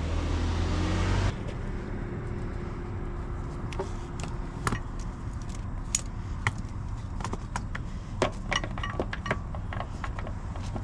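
Metal hardware of a tie-down strap clicking and jingling as the strap and buckle are fitted around a portable generator. The sharp clicks come in irregular clusters through the second half. A steady low rumble cuts off about a second in.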